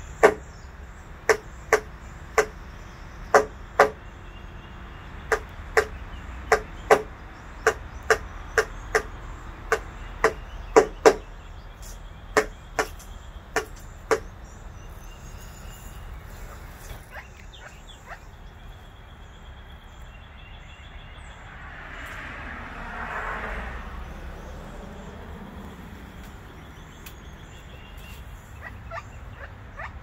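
Pileated woodpecker pecking at a window, about twenty sharp single knocks of its bill, one or two a second, which stop about halfway through. A little later a rush of noise swells and fades.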